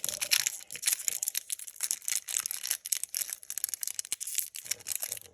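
A sealed trading-card pack wrapper being handled and torn open by hand: a dense, irregular crackling and crinkling that eases off near the end.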